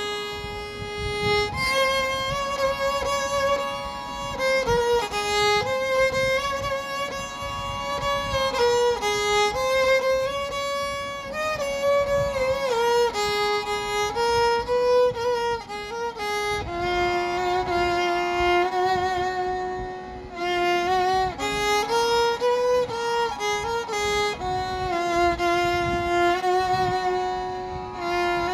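Background music: a violin playing a slow melody of held notes.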